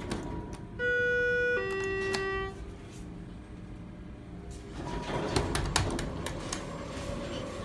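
Elevator chime sounding two notes, a higher then a lower one, about a second in, while the car doors stand open after the floor button is pressed. In the second half the sliding doors clatter and click.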